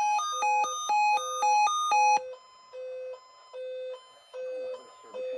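Weather radio receiver's alert alarm beeping: a loud, rapid alternation of two electronic notes that cuts off about two seconds in, giving way to quieter single beeps about twice a second. It signals that an alert has been received, ahead of the broadcast message.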